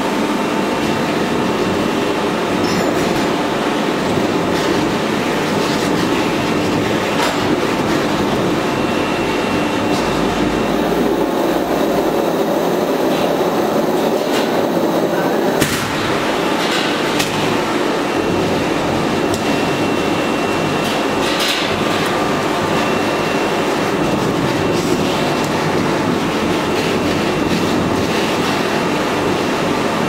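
Textile mill machinery running: a loud, steady din with many small clicks scattered through it.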